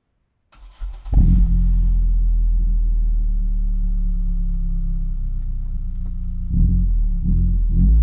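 Exhaust of a 1994 Nissan Primera P10's 1.6-litre four-cylinder petrol engine, heard close to the tailpipe. It comes in about a second in and runs at a steady idle. Near the end the note swells and its pitch rises and falls briefly.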